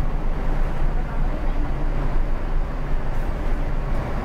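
Scania K360 coach's diesel engine running steadily at low revs, heard from inside the driver's cab as a deep, even hum.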